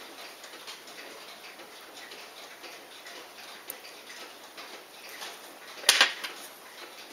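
Faint regular clock-like ticking, with small clicks of steel watchmaker's tweezers working on a watch movement and a sharper, louder metallic click about six seconds in.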